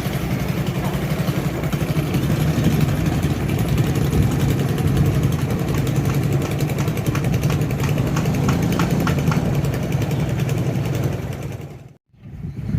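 Hino six-cylinder diesel engine of a cargo boat running steadily at low speed, with an even rapid pulsing; the sound drops out briefly near the end.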